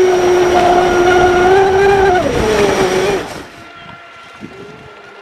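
Steady whine of an RC speedboat's motor running at speed, heard close from a camera on the boat, over the rush of water spray; the pitch sags slightly about two seconds in. About three seconds in it gives way to the much fainter whine of an RC speedboat running across the water at a distance, with wind.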